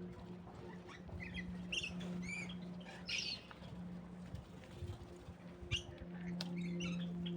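Small aviary birds giving short, high chirps and squeaks, scattered irregularly with a louder cluster about three seconds in, over a steady low hum.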